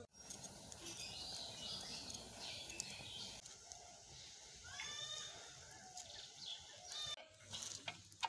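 Birds chirping and calling over a faint outdoor background, with one clearer stacked call about five seconds in and a few light clicks near the end.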